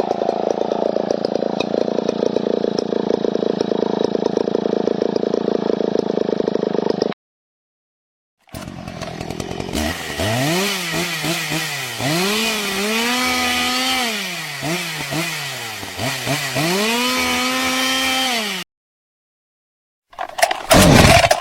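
Chainsaw sound effects played one after another. First comes a steady buzzing rattle of a running saw for about seven seconds. After a brief silence, a chainsaw engine revs up and down several times. After another short gap, a louder clip starts just before the end.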